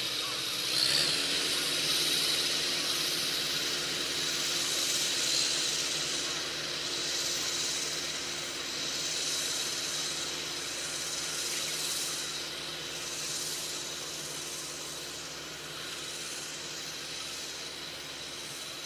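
Farm tractor engine running steadily in the distance as it works a field, its note shifting slightly about a second in, under a hiss that swells and fades.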